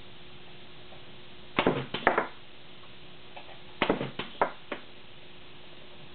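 TJ Snow 5 kVA pneumatic resistance spot welder making two welds on a battery tab. Each weld is a quick cluster of sharp clacks and snaps lasting under a second, the first about a second and a half in and the second about two seconds later.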